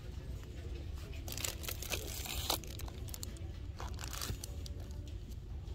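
Chocolate-bar wrappers crinkling as a hand takes bars from a shelf box: a longer burst of rustling about a second in and a shorter one near four seconds, over a steady low hum.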